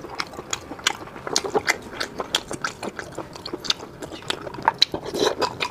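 Close-miked mouth sounds of a person chewing sea snail meat: an irregular run of sharp smacks and clicks, several a second.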